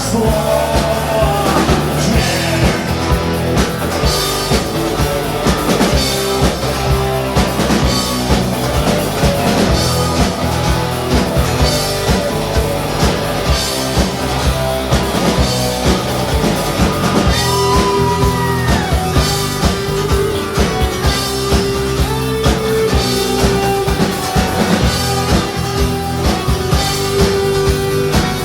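Live rock band playing, with a drum kit keeping a steady beat under guitars and bass.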